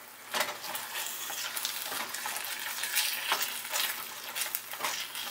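Masala paste, onions and freshly added tomato pieces sizzling in oil in a stainless steel kadai, stirred with a wooden spatula that scrapes and knocks against the pan several times.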